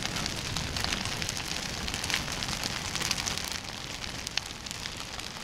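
A big long log fire burning: a steady rush of flame with frequent crackles and pops from the burning logs, and one sharper pop a little past the middle.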